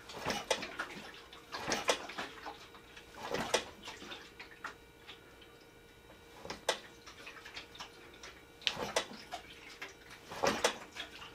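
Irregular clicks, taps and short rustles from hands handling wiring and parts at a motorcycle's front end, a sharper click every second or two.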